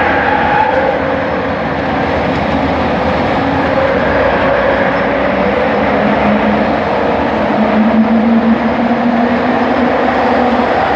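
Bombardier Innovia ART 200 light-metro train in motion: a steady rolling rumble with the whine of its linear induction motors, whose tones slowly shift and rise in pitch.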